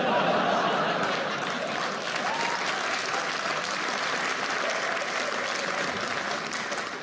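Theatre audience applauding, breaking out all at once and dying away near the end.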